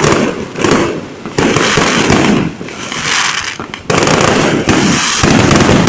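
Fireworks going off in a rapid string of bangs and crackles, with two short lulls.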